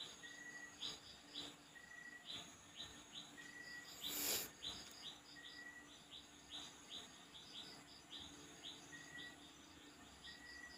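Faint background chirping of small birds: short, falling chirps repeated a few times a second, with a brief higher note about once a second. A short scraping noise about four seconds in.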